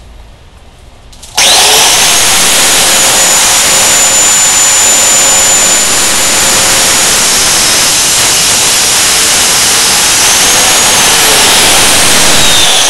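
Angle grinder with a cut-off wheel switched on about a second and a half in and cutting through a 3/16 inch steel rod: a loud, steady grinding hiss under a high whine. The whine's pitch sags for a few seconds as the wheel bites into the steel, and near the end it begins to fall as the motor winds down.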